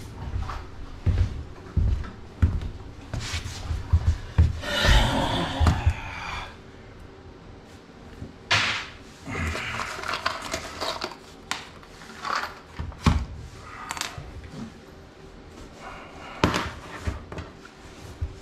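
Knocks, clunks and scrapes of hand work fixing a desk leg's bracket to the floor with big screws, with two longer noisy stretches, about five and nine seconds in.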